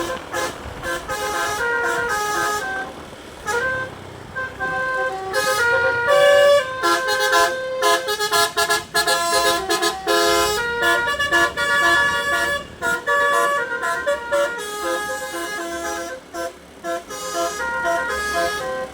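DAV D3 'telolet' musical air horn on a tour bus playing tunes, a quick run of stepped horn notes in phrases with short lulls between them.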